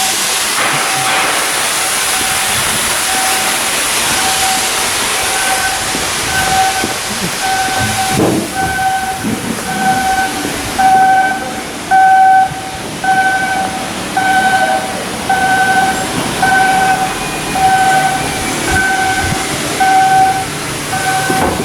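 Steady hiss, then an electronic warning beeper sounding a pulsed two-pitch tone at an even rate of a little over once a second, over low rumble and a knock or two, typical of shipyard machinery at work.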